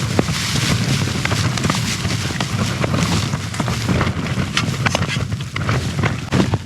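Strong wind gusts buffeting a tent: a steady low rumble with the fabric flapping and snapping in rapid crackles throughout.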